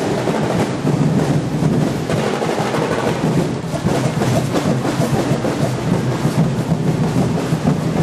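Festival drum and percussion ensemble playing a dense, steady beat to accompany a tribal street dance.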